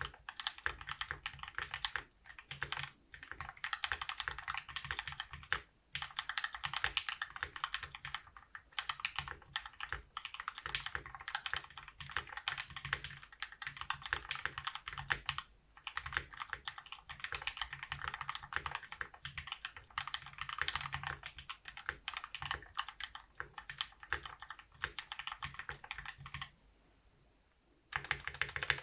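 Fast typing on a Voice65 mechanical keyboard with lubed Gateron Black Ink linear switches on an aluminium plate, under GMK keycaps: a dense, rapid run of keystroke clacks broken by short pauses, with a longer pause of about a second and a half near the end.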